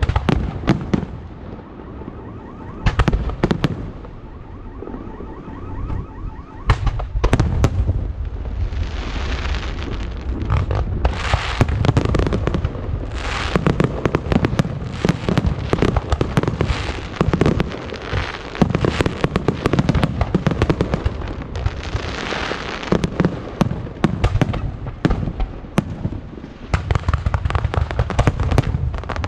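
Fireworks display: aerial shells bursting with sharp bangs, at first one after another, then from about eight seconds in a dense barrage of booms and crackling.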